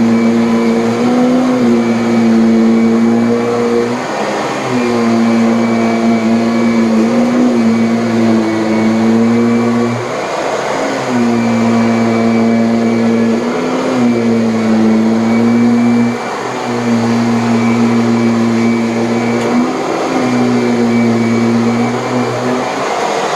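Kirby Avalir vacuum running its motor with the stiff oblique brush roll on, working over a firm mattress. Its steady hum shifts slightly in pitch with each stroke and dips briefly every few seconds as the nozzle is worked back and forth.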